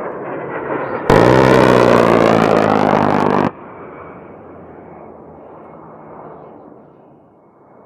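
A-10 Warthog's GAU-8 Avenger 30 mm rotary cannon firing one long burst, a deep buzzing 'BRRRT' that starts abruptly about a second in and cuts off abruptly about two and a half seconds later. Around it is the rushing noise of the jet's engines, fading away near the end.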